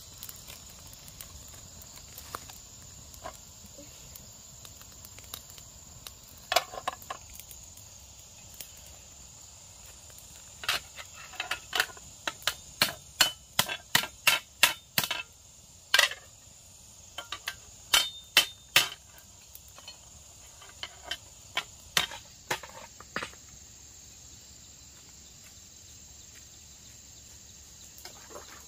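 A knife chopping, in sharp knocks of about two a second that come thickest and loudest in the middle and trail off a few seconds later. A steady high drone of insects runs underneath.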